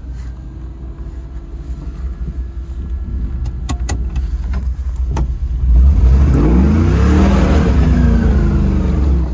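Old Toyota truck's engine heard from inside the cab, pulling in gear with a few sharp knocks midway. About six seconds in it revs up louder, its pitch then slowly sagging under load. The driver says it is not running the way he wants it to.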